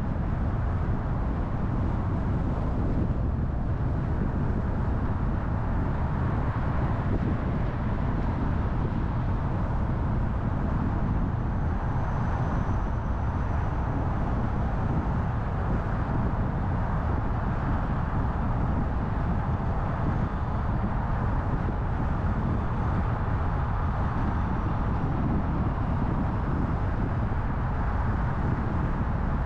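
Steady low rumble of a car driving on a city road: tyre and engine noise, even throughout with no distinct events.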